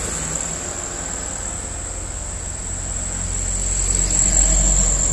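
Diesel engines of loaded trucks running on a hill climb: a low rumble that grows louder about three seconds in as a truck works up the grade. A steady high-pitched whine runs underneath.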